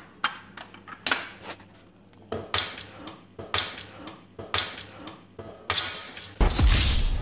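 Eggs tapped against the rim of a stainless-steel mixing bowl to crack them: a series of sharp separate knocks, one or two a second. Near the end a sudden loud, low rumble sets in and carries on.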